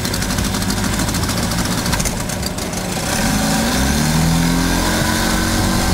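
A large engine running steadily, its pitch climbing a little about three seconds in.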